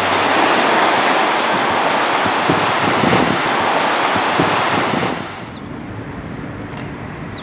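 Surf breaking and washing over shoreline rocks, a loud steady rush of water. It cuts off about five seconds in, leaving a quieter background with a few faint high chirps.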